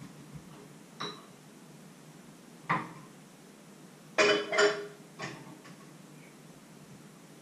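Metal kitchenware clinking and clattering on a counter as pots and bowls are handled: a few separate knocks, the loudest pair about four seconds in, with a brief metallic ring.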